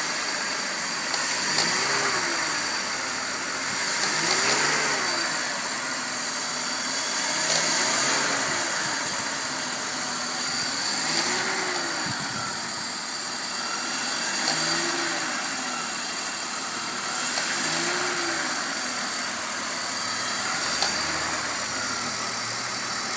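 BMW M54 inline-six engine idling and being blipped gently about seven times, roughly every three seconds, each rev rising and falling smoothly. A faint knock or 'thok' comes in as the revs climb, which the owner suspects comes from the VANOS or timing chain at the front of the engine.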